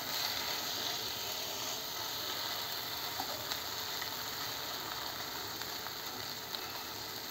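Khava (khoa) softening over low heat in a nonstick pan with a little ghee, giving a steady gentle sizzle. A plastic spatula presses and scrapes the pieces, with a few faint ticks.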